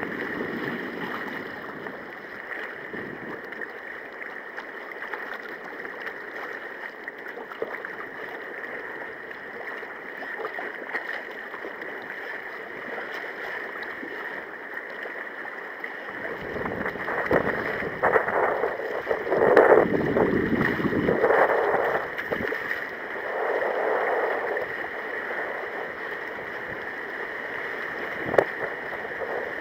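Choppy sea water sloshing and splashing around a sea kayak as it is paddled through rough water. The water grows louder and rougher about halfway through, with several loud surges, over a faint steady high whine.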